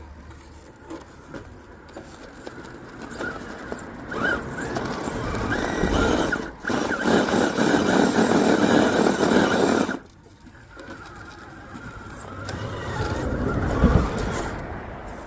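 RC rock crawler's electric motor and gear drivetrain whining under throttle as it crawls. The whine builds over several seconds, cuts off suddenly about two-thirds of the way in, then picks up again near the end.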